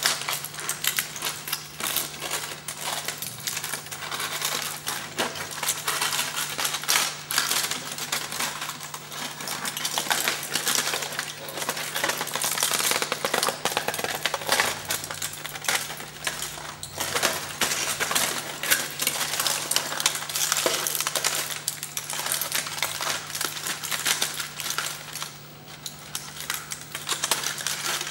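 Aluminium foil crinkling and crackling as hands squeeze and fold it: a dense, continuous run of fine crackles, over a faint steady hum.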